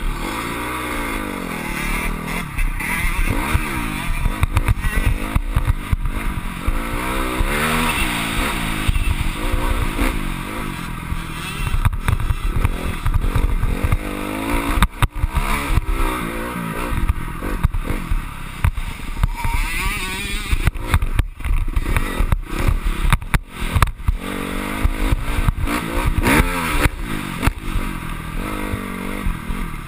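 Motocross bike's engine revving up and dropping off again and again as it is ridden over the track, its pitch climbing and falling with each burst of throttle and gear change. Sharp knocks and rattles come through every so often over the bumps.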